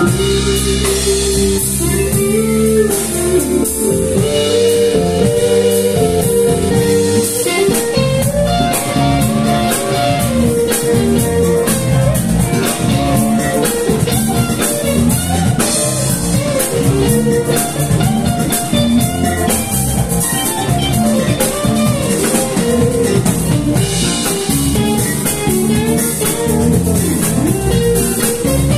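Live band playing an instrumental jam: electric guitars, bass guitar, drum kit and keyboard.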